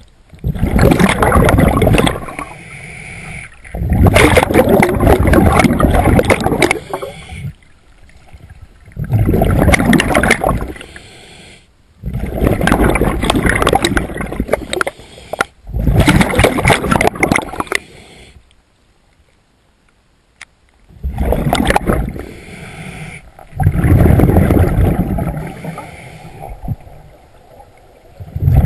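Scuba diver breathing through a regulator underwater: a loud rush of bubbling exhaled air every few seconds, about eight breaths, with quieter inhalations between and a longer pause of about three seconds past the middle.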